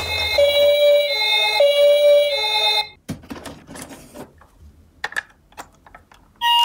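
Electronic toy ambulance siren sounding a hi-lo pattern of alternating high and low notes, which stops about three seconds in. Plastic toy cars then clatter and knock as they are moved about in a cardboard box. Just at the end, another toy's electronic siren tone starts.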